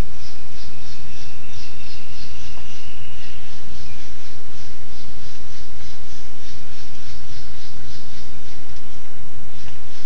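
Insects chirping in a steady rhythm, about four high pulses a second, over a steady low hum.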